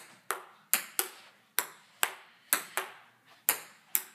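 Table tennis rally: the ball clicking sharply off the paddles and the table, about ten quick hits, often in close pairs of a paddle strike and a table bounce.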